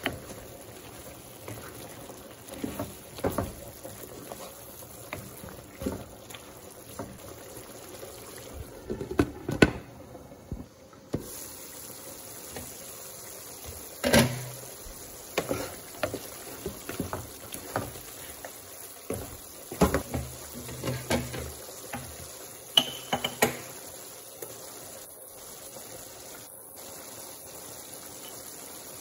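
Mutton curry simmering in a pan, a steady wet bubbling, with scattered knocks and scrapes of a spatula stirring it that die away a few seconds before the end.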